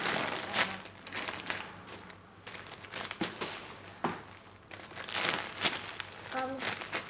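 Plastic squishy packaging crinkling and rustling as it is handled, in an irregular run of crackly rustles.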